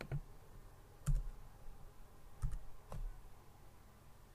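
Four separate, faint clicks of a computer keyboard and mouse, unevenly spaced about a second apart, as a typo in a search box is fixed.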